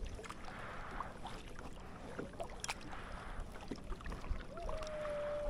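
Kayak paddle strokes dipping and splashing in lake water at a regular pace, with small knocks and drips. Near the end a single steady whistle-like tone begins with a short rise and holds.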